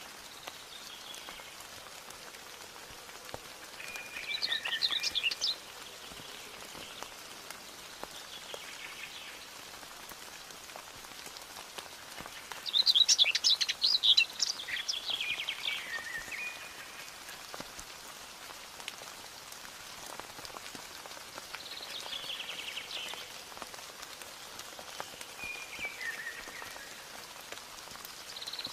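Steady rain pattering with scattered drops, while songbirds sing short, fast-trilled phrases every few seconds. The longest and loudest phrase comes about 13 seconds in.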